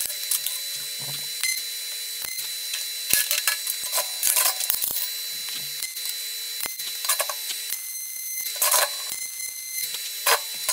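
Pulse MIG welder tacking steel gussets to a base plate: a handful of short crackling, buzzing bursts of arc, mixed with sharp clinks of steel parts being set down on the steel welding table.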